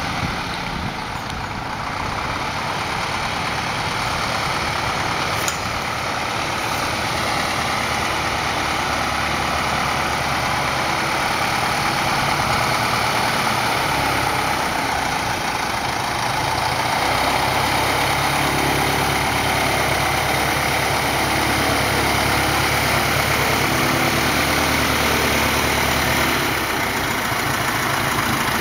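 CAP-4 Paulistinha light aircraft's piston engine and propeller running steadily at low taxi power. It grows louder as the plane comes close.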